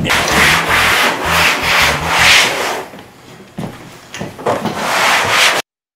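Scrubbing mud off the vinyl skin of an Ally folding canoe by hand: repeated rubbing strokes, about two a second, with a short lull in the middle. The sound cuts off suddenly near the end.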